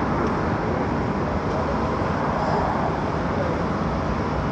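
Steady outdoor rushing noise with no distinct events, the even kind made by wind on a microphone, moving water or distant traffic.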